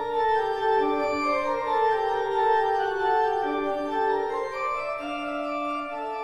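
Organ music playing slow, sustained chords, with held notes changing every second or so.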